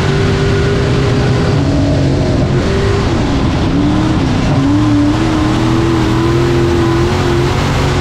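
Dirt-track race car engine running hard at around 5,500 rpm, heard from inside the cockpit. The engine note dips for a second or so about three and a half seconds in, then climbs back up.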